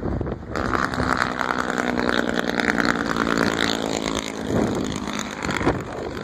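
A motor vehicle's engine running close by: a steady hum with a hiss over it that starts about half a second in and dies down near the end.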